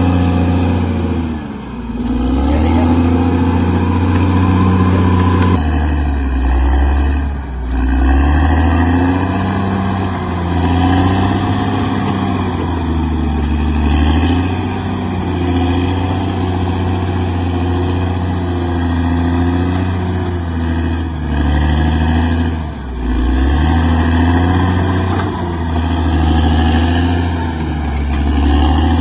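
Bulldozer's diesel engine running hard, its pitch sagging and picking back up several times as it takes load while pushing earth and rock.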